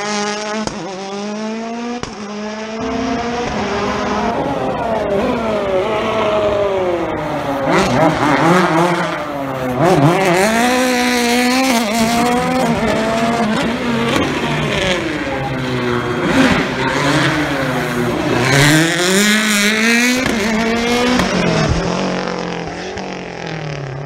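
Rally car engines revving hard through a tight chicane, the pitch climbing through the gears and dropping sharply on lifting off, several times over as the cars run through.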